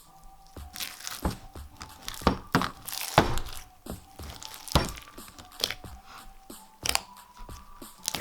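Thick cream cheese based slime with foam beads being squeezed and pressed by hand, giving irregular crunches and sharp crackling pops.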